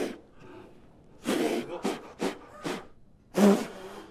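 A man blowing forceful breaths out in a row of short, hard huffs, about five of them, some with a bit of voice in them.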